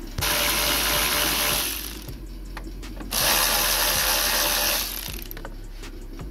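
Cordless electric ratchet spinning out 10 mm bolts through a socket and extension: two runs of about a second and a half each, with a few clicks between and after them.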